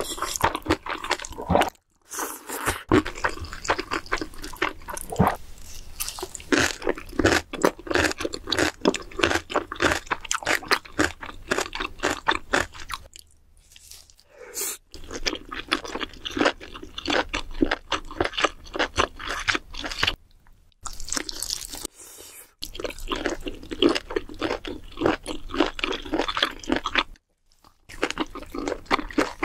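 Close-miked eating: a person chewing and biting food, first noodles and then spicy crab and lobster, in a dense run of wet crackles and crunches. A few brief pauses break it up.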